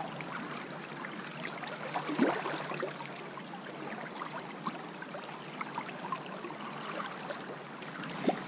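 Shallow river current running over a riffle: a steady rushing with small trickles and splashes.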